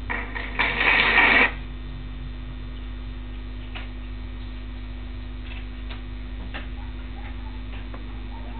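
A brief burst of audience applause that cuts off abruptly after about a second and a half. A steady electrical mains hum follows, with a few faint clicks.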